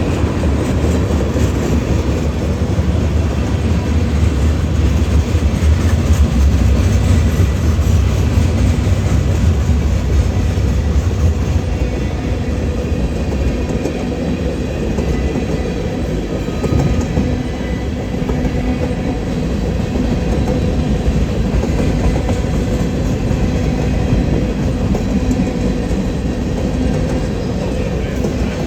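Union Pacific freight train cars rolling past, a steady rumble that is heaviest in the first third and eases a little after.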